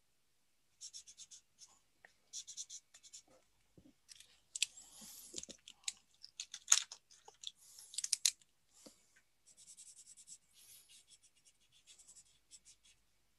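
Felt-tip marker strokes on paper in quick short runs, with rustling and a few sharper clicks around the middle, the loudest a single sharp click.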